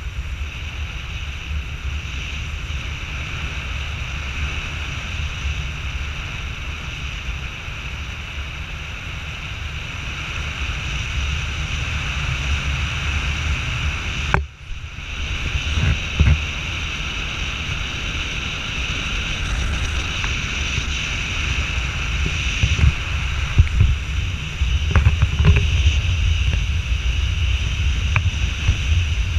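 Tandem paramotor engine running steadily in flight, with wind buffeting the microphone. There is a brief break about halfway through and a few light knocks in the second half.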